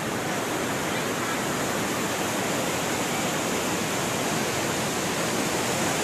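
Fast mountain river, the Parvati, rushing over boulders in a steady, unbroken roar of white water.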